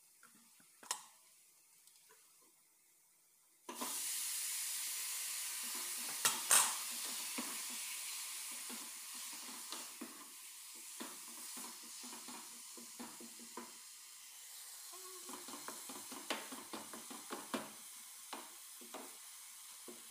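Minced beef dropped into hot oil in a pot starts sizzling suddenly about four seconds in. The sizzle fades slowly as it is stirred with a wooden spoon, with light scrapes and knocks against the pot.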